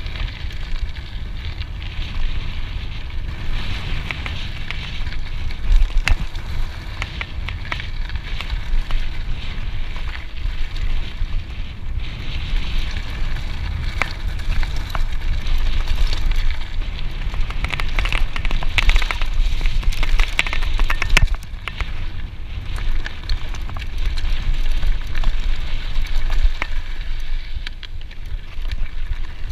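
Scott Genius mountain bike riding over dirt singletrack: steady wind buffeting on the camera microphone, with tyre noise and many sharp clicks and rattles from the bike over rough, rocky ground.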